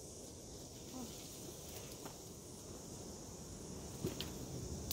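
Steady high-pitched chirring of insects such as crickets, with a couple of sharp clicks near the end.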